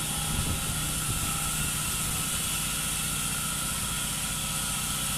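Fishing boat's engine running steadily: a constant low drone with a steady thin whine over it and a high hiss.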